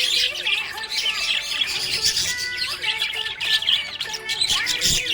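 Several budgerigars chattering together, many quick warbling chirps and squawks overlapping without a break.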